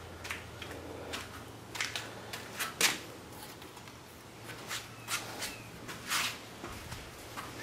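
Scattered light clicks and rustles from hands handling chicken wire on a wooden frame, about a dozen short sounds, the sharpest about three seconds in.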